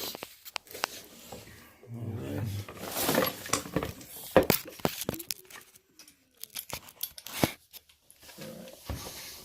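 Scattered sharp clicks and knocks of hand work at a wall, with a few brief bits of low speech.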